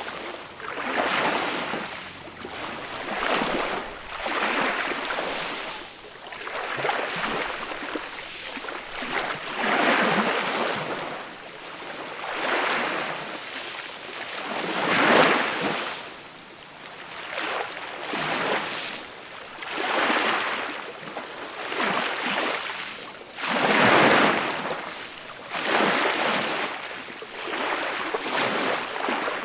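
Small waves washing onto a beach, one soft swell of surf every two seconds or so, with a couple of larger breaks mid-way and later on.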